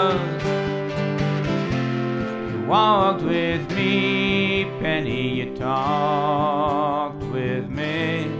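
Slow country-style song with acoustic guitar accompaniment: a long wavering note, the end of a sung line, fades out right at the start, then wavering melody notes come back between the lyric lines, one sliding up about three seconds in.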